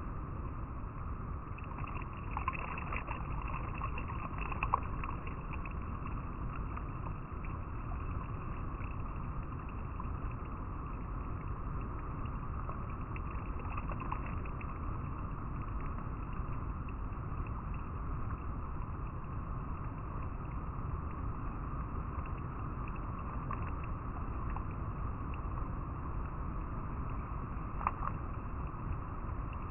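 River water flowing and rippling over rocks: a steady, even rush, with a few small splashes now and then.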